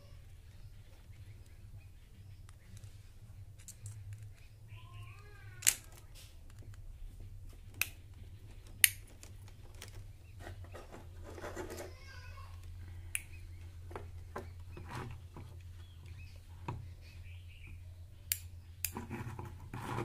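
Small hand-tool work on a plastic doorbell switch: a screwdriver, plastic parts and wires click and tap sharply a few times, with rustling as the wires are handled. A bird chirps briefly about four seconds in, over a low steady hum.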